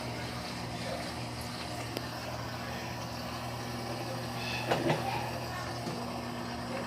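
LT13B top-loading washing machine running through its wash cycle: a steady low motor hum with water movement. There are a few short knocks about two-thirds of the way through.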